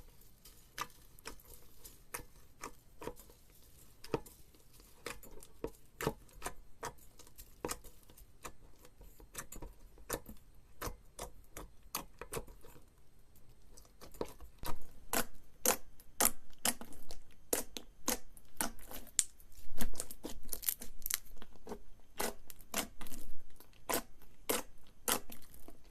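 Slime being pressed and poked by hand, giving many irregular sharp clicks and pops, quicker and louder from about halfway.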